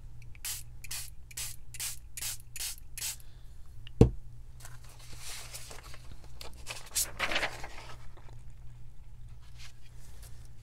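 Hand trigger spray bottle spraying coffee dye in quick pumps, about three sprays a second for roughly three seconds. A single sharp thump about four seconds in, then softer scraping.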